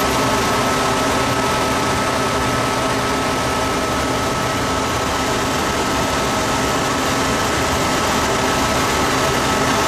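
Steady drone of an idling truck engine and grain-handling machinery, with a constant thin whine, as corn is dumped from a semi's dump trailer into the receiving pit.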